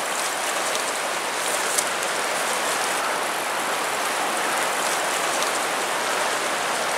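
Shallow creek water rushing steadily over a stony riffle.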